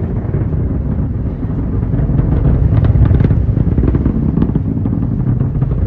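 Falcon 9 rocket's Merlin engines at launch: a loud, steady low rumble with sharp crackles, growing a little louder about two seconds in.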